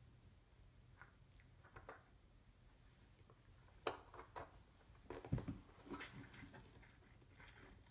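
Faint scuffs and soft knocks of a cat shifting about in a sink, with a dull bump a little past five seconds in; otherwise near silence.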